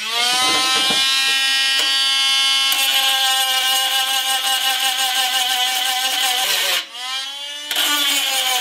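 Milwaukee M12 cordless rotary tool with a small grinding stone, running at high speed with a steady whine and grinding the mushroomed head off a rivet on the pressed-steel toy truck body so the rivet can be popped out. A grinding hiss joins the whine about three seconds in; about seven seconds in the tool slows down briefly, then speeds back up.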